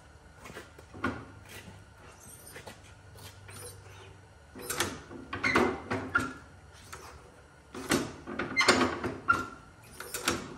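A 1944 Allis-Chalmers B's four-cylinder engine is hand-cranked over with the ignition off and the choke closed, drawing fuel in before a start. There are two rough bursts of cranking, one about halfway through and one near the end, each lasting a second or two.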